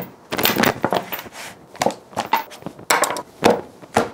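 Leather knife roll being unrolled and flattened on a wooden butcher-block table: a string of rustles, flaps and knocks, about one every half second to second.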